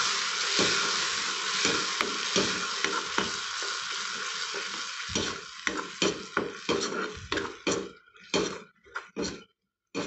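Freshly added tomato purée sizzling with fried onions in sesame oil in a kadai while a spatula stirs and scrapes the pan. The sizzle fades steadily as the purée takes the heat, and by the end only separate spatula strokes are left.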